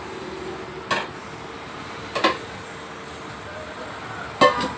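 Heavy SK metal cooking pots clanking as they are set down and handled on a hard floor: a knock about a second in, a quick double knock a little after two seconds, and the loudest near the end, which rings briefly.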